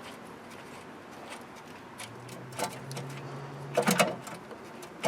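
Metal bolt and tools clicking against the starter mount while the top starter bolt is being threaded in. There is a single click a little past halfway, then a quick cluster of clinks near the end, with a faint steady low hum in between.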